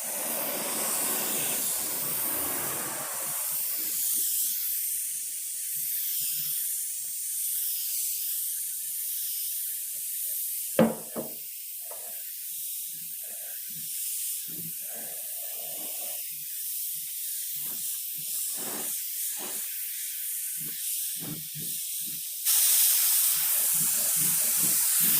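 Compressed-air paint spray gun hissing steadily as it sprays paint onto a motorcycle fuel tank. There is a sharp click about eleven seconds in, and the hiss gets louder near the end.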